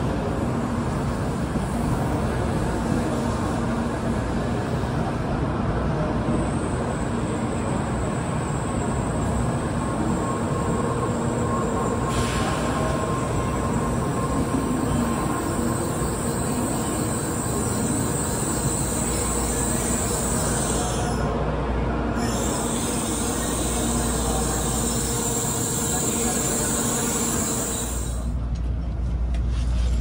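Tokaido Shinkansen N700A train pulling into the station, with steady running noise and a high whine. Near the end the whine stops and a low rumble rises.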